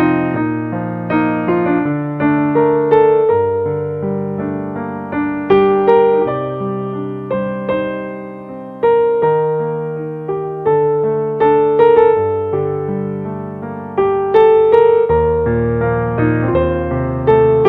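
Slow ambient piano music: unhurried chords and melody notes struck every half second to a second, each ringing and fading away.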